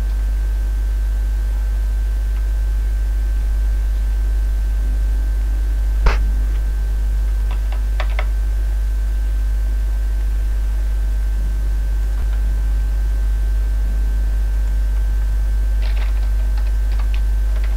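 A steady low hum with a faint high whine over it, and a few scattered computer keyboard keystrokes: one about six seconds in, a short run around eight seconds, and a few more near the end.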